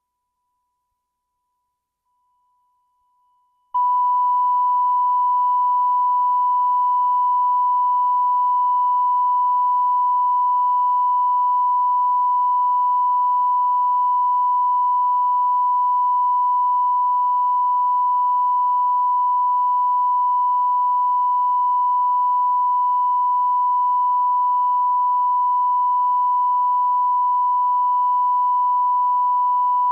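A steady 1 kHz reference tone of the kind laid at the head of an analog master tape for alignment. It is faint at first, then comes in at full level about four seconds in and holds without change.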